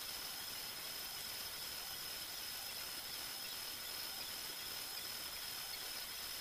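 Steady, featureless hiss with a thin, constant high-pitched whine over it, unchanging throughout.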